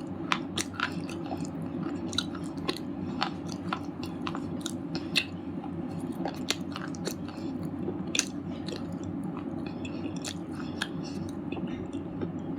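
Red slate chips being chewed: irregular sharp crunches and crackles, several a second, with a few louder snaps, over a steady low hum.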